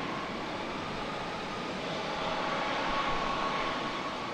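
Jet airliner engines running: a steady rush with a faint high whine.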